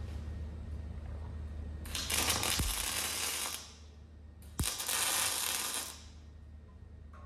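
Electric arc welding on steel: two short welds of about a second and a half each, crackling steadily, with a low hum underneath.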